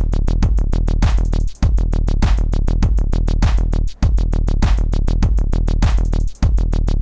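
Electronic music with a rapid, pulsing beat over heavy bass, cutting out for an instant three times, roughly every two and a half seconds.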